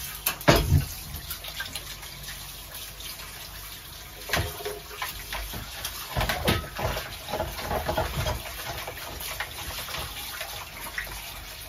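Kitchen tap running into the sink while something is washed under it by hand, with a few knocks and clinks against the sink.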